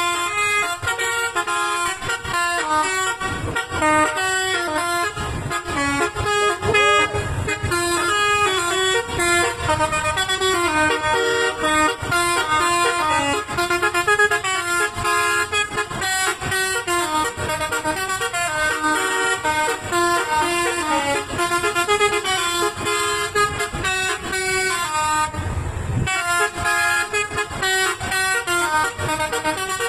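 Bus 'telolet' multi-tone air horn playing a fast, stepping melody almost without pause, with a brief break about 25 seconds in, where a low rumble shows through.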